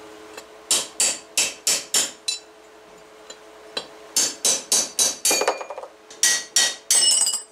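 Hammer blows on a steel punch, driving a bearing race out of a Suzuki Samurai rear differential third member. The sharp metallic strikes come in quick bursts of about three a second with short pauses between, and a half-second metallic clatter comes near the end.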